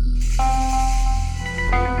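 Background music: sustained held notes that move to new chords about half a second in and again near the end, with a high shimmering hiss over them.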